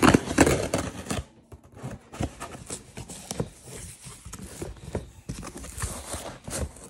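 A delivered package being opened by hand: cutting and tearing at the packaging, then rustling and handling with many small clicks and scrapes. It is loudest in the first second or so.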